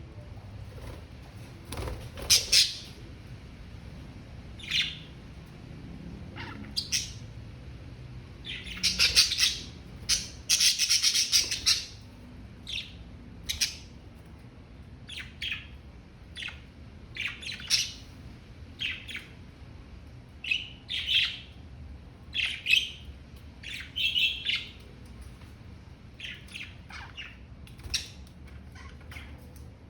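Budgerigars chirping and chattering in a string of short, high calls and squawks, with a dense busy stretch about a third of the way through.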